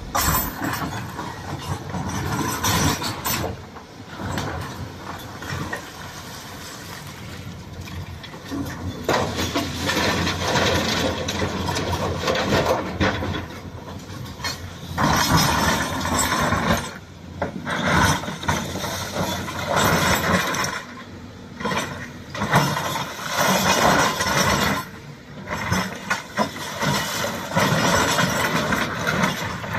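Shantui excavator working: its engine runs under changing load with irregular mechanical clanking and rattling, swelling and dropping in loudness every few seconds.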